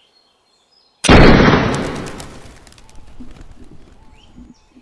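A single rifle shot from a scoped hunting rifle about a second in, very loud and sudden, its echo fading away over the next few seconds.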